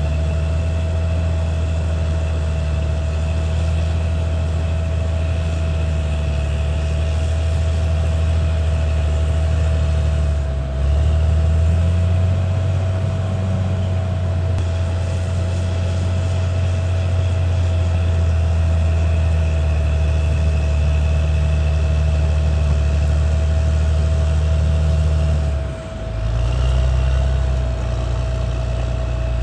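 Caterpillar D6R XL bulldozer's diesel engine running steadily under work, with a thin steady whine above the engine note. The engine note dips briefly and changes pitch about a third of the way in, and again near the end.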